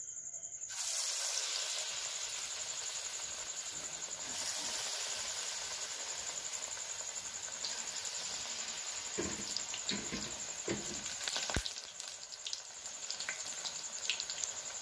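Hot oil sizzling as a batter-coated bok phul (hummingbird-tree flower) fritter deep-fries in a kadai. The sizzle starts suddenly about a second in as the fritter goes into the oil, then goes on steadily with scattered crackles and pops.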